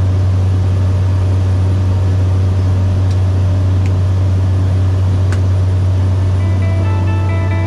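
Cessna 208B Caravan's PT6A turboprop running steadily: a loud, even propeller drone with a strong low hum. Guitar music comes in near the end.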